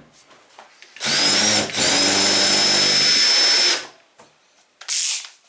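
Power drill-driver running a screw into a door knob's mounting plate: a short spin, a brief stop, then a steady run of about two seconds with a high whine. A short burst follows near the end.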